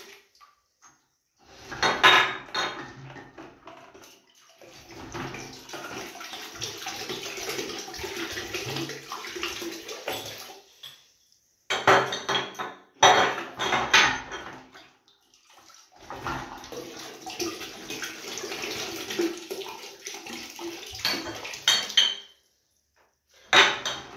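Green glass beer bottles clinking against each other and the bucket as they are washed, with water sloshing and splashing in a plastic bucket. Sharp clinks come about 2 seconds in, again around 12 to 14 seconds, and near the end, with short quiet gaps between the stretches of washing.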